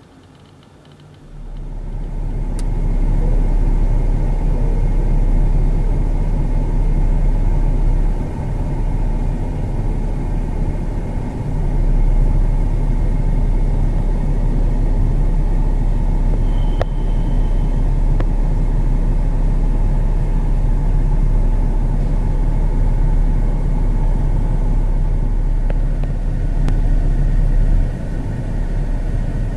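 A motor vehicle's low, steady rumble that starts abruptly about a second in and continues loud and even. A short high beep lasts about a second midway through.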